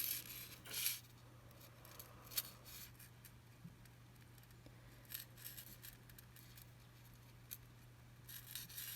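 Faint, scattered small metallic clicks and ticks as jewelry pliers work a tiny jump ring through a fine chain link, over a steady low hum.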